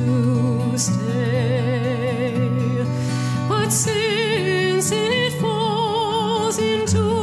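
Background music: a slow melody with vibrato over sustained low notes.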